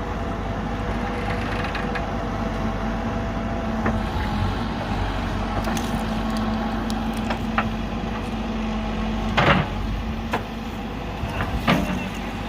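JCB backhoe loader's diesel engine running steadily, with a few sharp knocks, the loudest about nine and a half seconds in.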